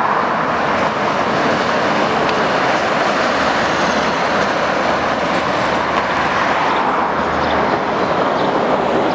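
Scania R580 tractor unit with its V8 diesel, pulling a trailer past at close range: a steady mix of engine and tyre noise, with a low rumble strongest about halfway through as the truck goes by.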